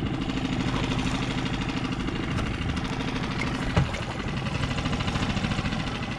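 Mercury outboard motor idling steadily with an even pulse, with one brief knock a little past halfway.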